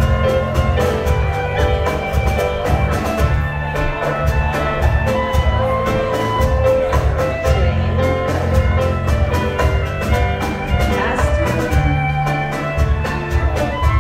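Live contra dance band playing an upbeat dance tune with a steady, even beat over a bass line.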